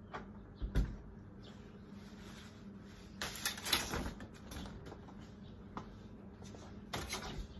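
A folding umbrella being opened in a doorway: a rustle and whoosh of fabric about three to four seconds in, the loudest part, between a soft knock just under a second in and a short clatter near the end from the door being handled.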